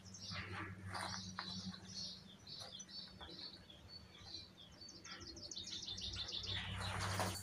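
Small birds chirping: many short, high notes in quick runs, with a faint steady low hum underneath.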